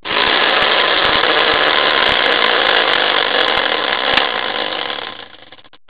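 Hand-spun prize wheel whirring, its pointer clattering rapidly against the rim. The clatter starts suddenly and dies away about five seconds in as the wheel slows to a stop.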